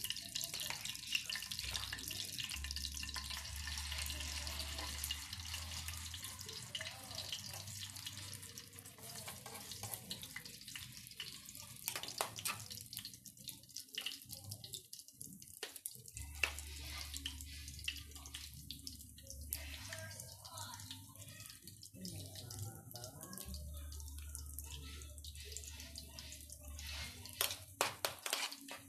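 Chicken loaf mixture sizzling in hot oil in a frying pan as it is spooned in. The sizzle is strongest at first and thins out after about ten seconds, with scattered sharp clicks of a spoon against the bowl and pan, more of them near the end.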